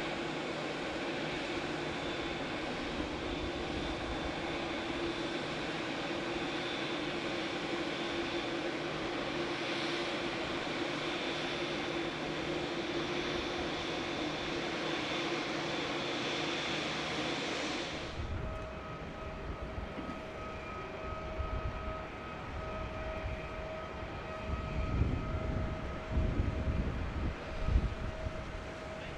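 Jet airliner engines running with a steady rush and a held whine, as from a plane on approach or landing. About 18 s in the sound changes abruptly to a quieter steady hum with a thin whine and irregular low rumbles.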